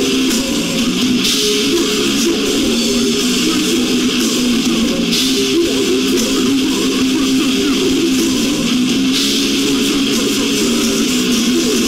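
Death metal band playing loud and without a break: distorted electric guitar through a Peavey Ultra Tube Triple X amp head, with bass guitar and drums with cymbals.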